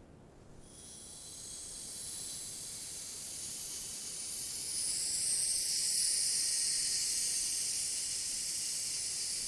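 A steady high-pitched hiss that swells in over the first couple of seconds and then holds steady.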